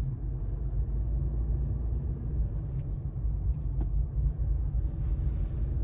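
Car driving, a steady low rumble of engine and tyres with a faint engine hum above it. A single sharp click comes a little under four seconds in, and a short hiss near the end.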